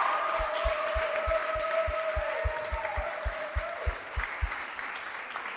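Small audience applauding at the end of a song. The accompaniment's last held note fades out over the first four seconds. Steady low thumps, about four a second, stop about four and a half seconds in.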